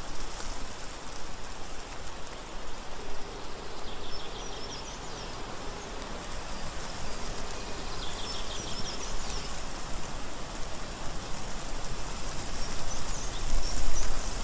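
Forest ambience: a steady rushing hiss, with faint high chirps about four and eight seconds in and a low rumble near the end.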